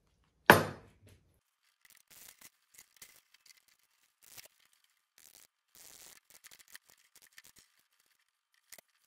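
A single sharp, loud knock about half a second in, then faint rustling and light metallic clicks as gloved hands handle a large steel clock mainspring on a spring winder.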